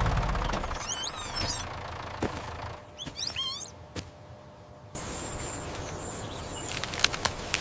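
Birds chirping outdoors: two quick flurries of chirps a couple of seconds apart, over a low engine rumble that fades out at the start. A few sharp clicks follow near the end.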